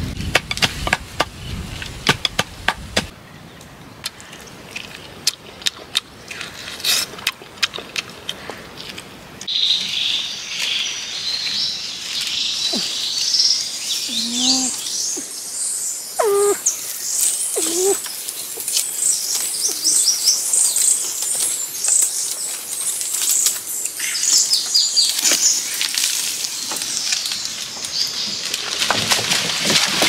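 Forest ambience: a dense, high chirping chorus of birds or insects sets in about ten seconds in and carries on, with a few lower, gliding whistled calls near the middle. Scattered sharp clicks and snaps come in the first part.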